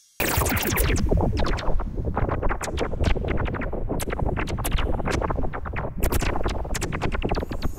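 A harsh animal-deterrent noise track: a dense, irregular crackle of clicks and knocks over a deep rumble, starting suddenly.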